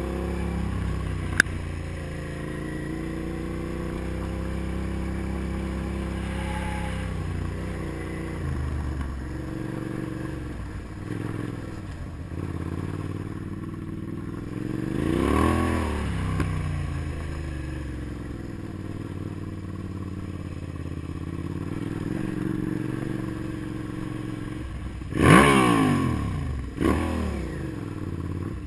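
Motorcycle engine running while riding on a dirt road, its pitch rising and falling with the throttle. There is one sharp click about a second and a half in. Near the end the engine revs up loudest, then falls back.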